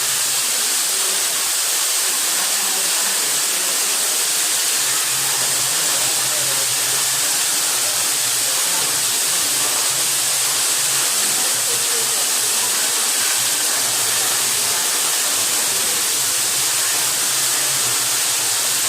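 Waterfall rushing, a steady even roar of falling water with no change in level.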